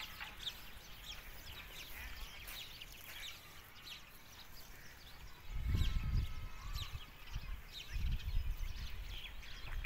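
Small birds chirping in the background. Low rumbling buffets on the microphone come in about halfway through.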